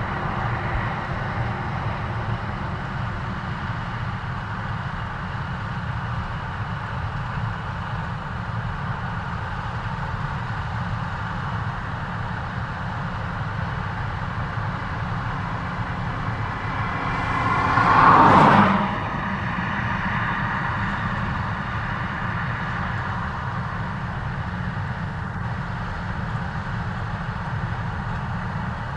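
New Holland CX8.90 combine harvester running steadily under load while harvesting barley. A louder swell builds for about two seconds past the middle, then drops back quickly to the steady drone.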